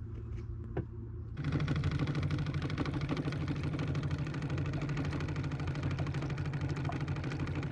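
A small boat's electric trolling motor running steadily. About a second and a half in it gets louder and fuller and then holds steady.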